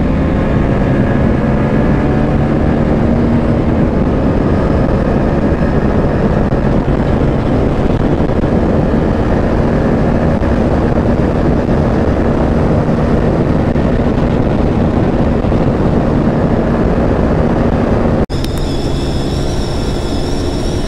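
Bajaj Pulsar NS160's single-cylinder engine pulling hard at speed under full throttle, heard through heavy wind rush, its note climbing slowly over the first few seconds. About two seconds before the end it cuts abruptly to the TVS Apache RTR 160 4V's engine and wind, with a different, higher-pitched tone.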